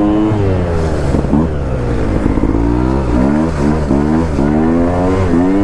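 Small pit bike engine revving hard, its pitch dropping off shortly after the start, then climbing again and rising and falling in a quick run of throttle bursts over the last couple of seconds as the bike rides on snow.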